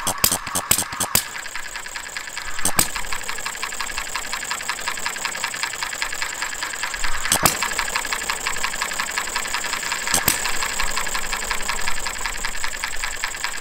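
Jerry Howell Farm Boy model hit-and-miss engine running: a fast, even mechanical clatter as it coasts, broken by sharp firing strokes, a few in quick succession in the first second and then single ones several seconds apart. The irregular spacing is the governor letting it fire only when it slows, and it freewheels between firings.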